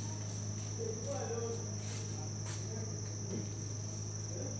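Steady high-pitched chorus of crickets over a low, even electrical hum, with a few faint scattered noises.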